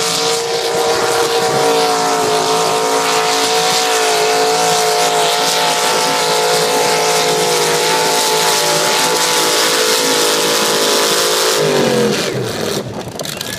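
Mud-racing 4x4 truck's engine held at high revs over a steady hiss through the pass. The revs drop off sharply about twelve seconds in.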